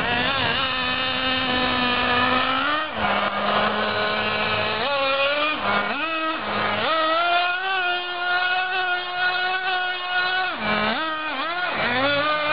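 Traxxas Jato 3.3's small nitro engine revving as the RC truck is driven: a steady note for about three seconds, a drop and a climb, then a higher steady note for about three seconds before several quick throttle blips near the end. It stays in first gear throughout, never revving high enough to shift into second.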